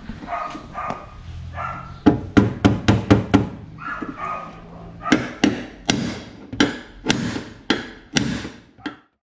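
Hammer blows on a Volkswagen Kombi's sheet-metal body as a collision dent is beaten out, in two quick runs of sharp metallic strikes, about three a second. A dog barks a few times between the runs.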